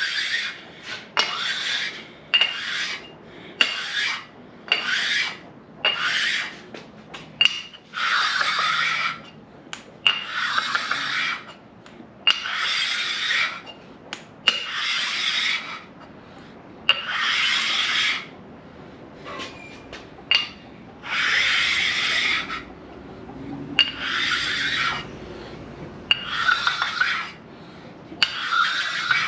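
A 400-grit sharpening stone rasping back and forth over the deck surface of a 6.0 LS engine block in a long series of strokes, some short and some about a second long, with brief pauses. It is evening out the surface finish and taking off old head-gasket marks.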